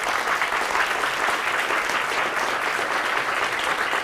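Lecture audience applauding steadily, many people clapping at once, at the end of the talk.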